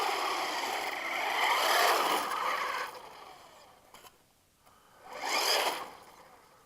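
Radio Shack Nitro Burner RC car's electric motor, run on a 3-cell LiPo, whining as the car drives on ice, its pitch rising and falling with the throttle. It fades out about three seconds in, and a second, shorter burst of running comes about five seconds in.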